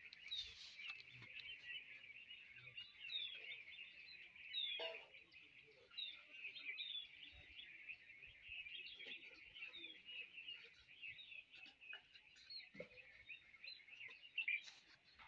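Faint chorus of birds chirping, many short overlapping calls with quick rising and falling notes.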